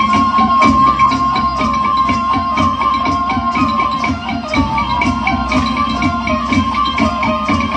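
Traditional music: rapid, steady percussion strokes under a high melody line that holds one note and steps up and down around it.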